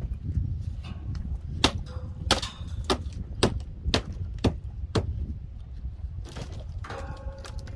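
Hammer strikes on wood, about seven sharp blows roughly half a second apart, during demolition of rotten wall framing.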